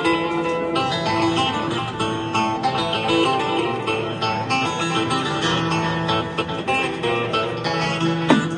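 Music led by plucked string instruments, with a dense run of changing notes over a steady bass.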